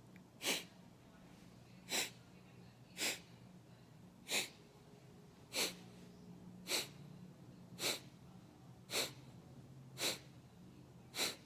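Kapalbhati pranayama breathing: sharp, forceful exhalations through the nose, each pushed out by pulling the belly in, about one a second and ten in all, with quiet passive inhalations between them.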